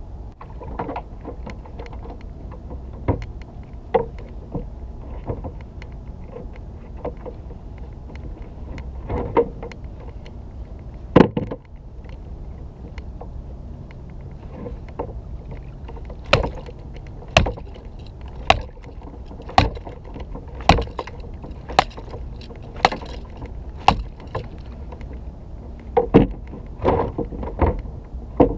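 Sharp knocks and thuds on a plastic sit-on-top kayak, scattered at first and then coming about once a second through the second half, over a steady low rumble of wind and water.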